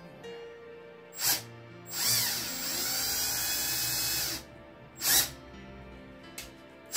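Cordless drill with a small bit boring a shallow pilot hole into MDF, run in short bursts: a brief blip, a run of about two seconds with the motor whining, then another brief blip.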